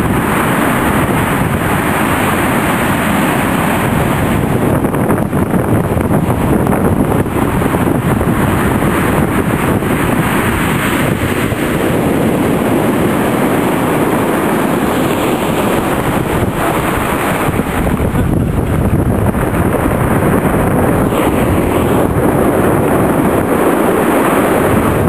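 Heavy hurricane-driven surf breaking and washing up over a cobble beach, a loud, steady roar of water, with wind buffeting the microphone.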